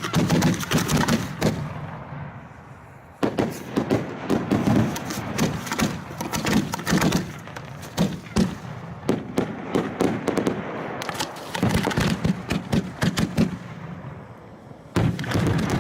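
Fireworks going off: a dense, rapid string of sharp pops and bangs in long runs, easing off briefly about two seconds in and again near the end before starting up once more.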